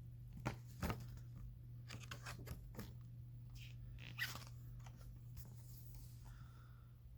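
Scattered clicks and crackles, the loudest a little under a second in and just after four seconds in, over a steady low electrical hum.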